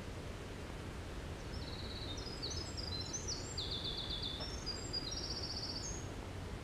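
A winter wren singing one long, rapid song of high trills and quick varied notes, starting about a second and a half in and ending near the end. Under it runs a steady low rumble of outdoor background noise.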